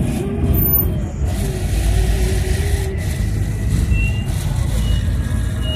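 Car on the move: a steady, loud low rumble of engine and road noise.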